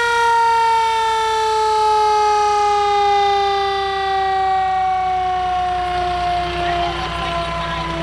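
Fire truck's mechanical siren winding down: one long wail that falls slowly and steadily in pitch as the rotor coasts after being wound up.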